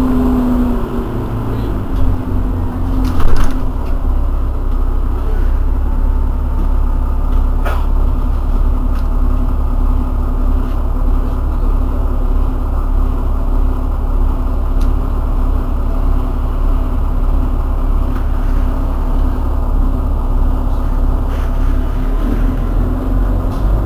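Irisbus Citelis 12 city bus idling at a standstill: a steady low engine rumble with a steady hum. A brief loud knock about three seconds in and a faint click near eight seconds.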